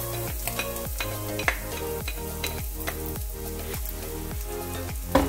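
Minced garlic sizzling as it is scraped from a plate into hot cooking oil in a frying pan, with a couple of sharp utensil clicks near the end. Background music with a steady beat plays underneath.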